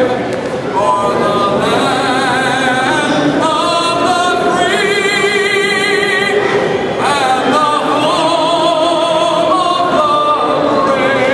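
Music with singing: a voice sings a melody, holding notes with vibrato.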